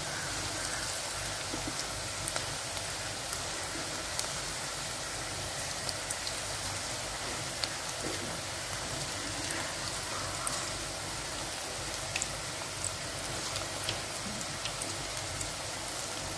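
Cabbage pakoda deep-frying in hot oil in a steel kadai: a steady sizzle with many small pops and crackles.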